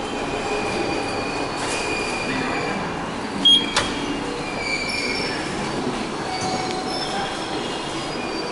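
Train at the station with its wheels squealing: several high-pitched squeal tones come and go over a steady rumble, with a short sharp louder sound about three and a half seconds in.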